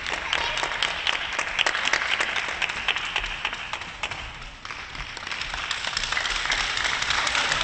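Arena crowd applauding, a dense patter of many hands clapping that dies down briefly a little past halfway and then builds again.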